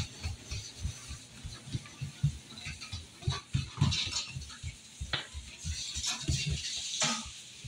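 Soft thumps and pats on a hard plank floor, two or three a second, from a toddler crawling fast and someone walking behind her, with a few sharper clicks.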